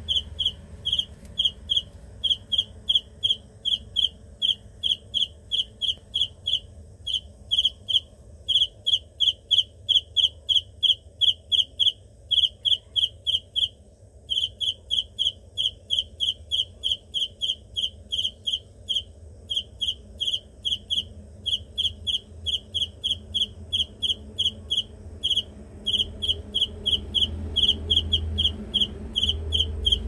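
A male cricket calling: a long run of loud, short, high-pitched chirps, about four to five a second, broken by a few brief pauses.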